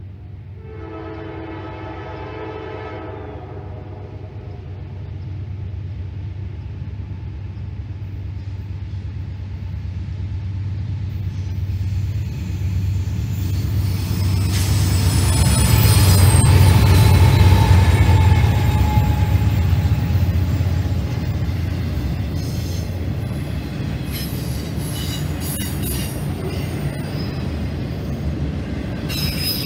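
A train horn blows once for about two seconds near the start as two CSX C40-8W diesel locomotives approach; their engines grow louder and peak a little past the middle as they pass, with wheels squealing on the rail. Autorack freight cars then roll by with a steady noise of wheels on track.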